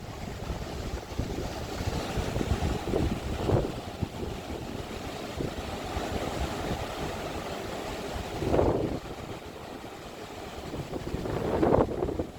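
Wind buffeting the microphone over the steady wash of ocean surf, with two louder surges of noise, one about two-thirds of the way in and one near the end.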